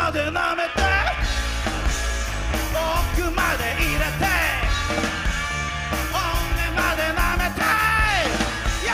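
Live rock band playing a loud rock and roll number on electric guitar, electric bass and drum kit, with bending lead lines over a steady driving beat.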